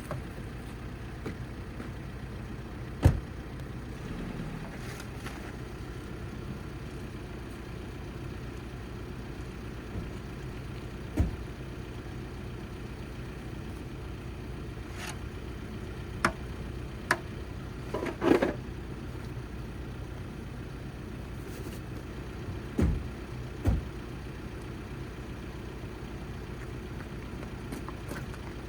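Van engine and road noise heard from inside the cab while driving: a steady low drone, broken by several short, sharp knocks and rattles, the loudest a brief cluster about two-thirds of the way through.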